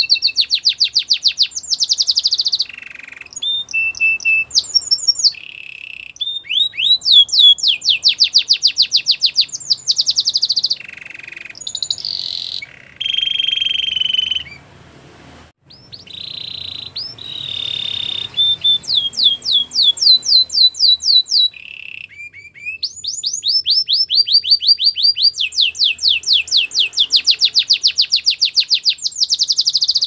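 Canary singing a long song of fast trilled rolls, each a run of quickly repeated notes, mixed with a few short steady whistled notes. There is a brief pause about halfway through before the song picks up again.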